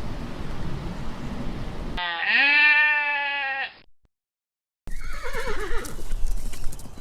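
Two farm animal calls separated by a short silence. Noisy outdoor sound comes first, then a drawn-out pitched call about two seconds in. After a brief dead gap, a wavering, falling call follows.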